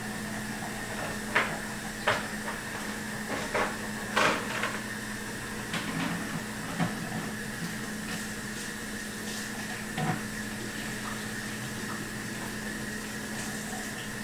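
A steady electrical-sounding hum with two held tones over a faint hiss, with scattered knocks and taps until about ten seconds in.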